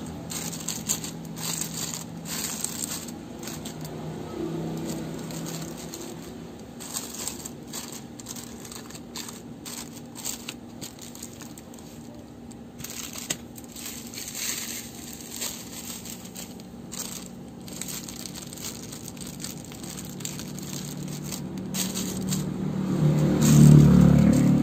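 Plastic detergent sachets crinkling and rustling as they are handled and packed upright into a plastic organizer tray, with many small clicks and crackles. A low rumble swells near the end.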